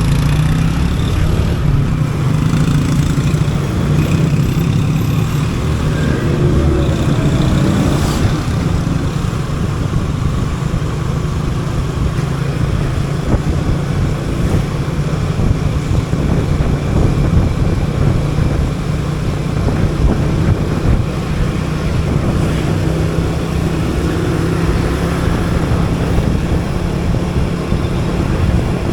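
Motorcycle engine running steadily while riding in city traffic, with road noise.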